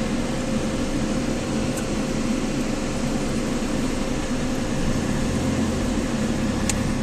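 Steady interior noise of a car driving slowly: a constant hum over an even rush, with a faint click near the end.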